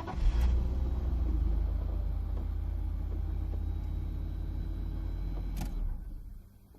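BMW E39 Touring running with a steady low drone and a faint high whine above it. There is a click near the end, and then it stops.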